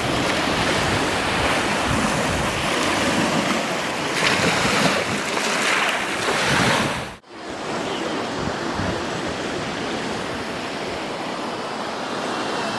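Baltic Sea surf washing onto a sandy beach, with wind buffeting the microphone. About seven seconds in the sound cuts off abruptly and resumes as a steadier, softer wash of waves.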